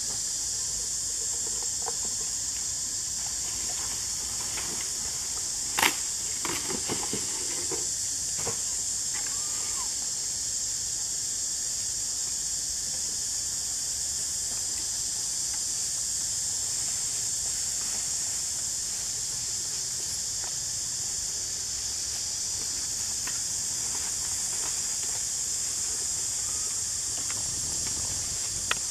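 Macaques rummaging through rubbish bags and husks: a sharp knock about six seconds in, then a couple of seconds of rustling and small knocks, over a steady high hiss.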